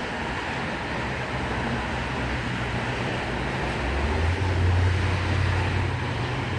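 Sydney Trains V-set electric train standing just past the platform end, running with a steady rumble and a low hum that grows louder about four seconds in.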